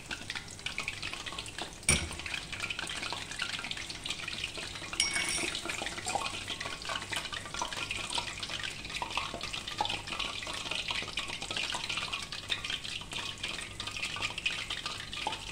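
Dough balls deep-frying in hot oil: a steady crackling sizzle while a wire skimmer stirs through the oil. A sharp knock about two seconds in, and a lighter one about five seconds in.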